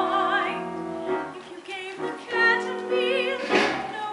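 Musical-theatre song: a voice singing with vibrato over sustained piano or keyboard accompaniment.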